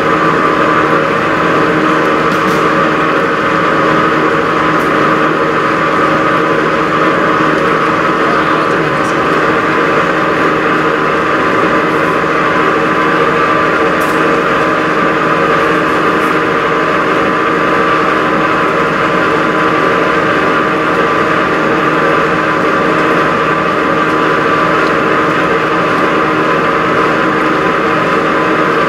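Electric motor of a stainless-steel paddle mixer running steadily: a constant hum made of several steady tones, with no change in speed, as the paddle churns cut squid.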